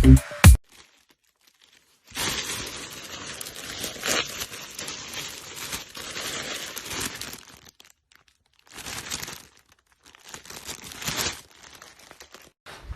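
Rustling, crinkling noise with many small clicks, coming in three stretches: a long one of about five seconds, then two short ones.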